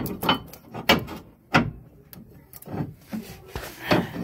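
Irregular knocks, clunks and scraping of a metal suspension-kit part being handled and pushed up against a pickup truck's frame, about six sharp knocks. The part is hitting the frame and will not fit.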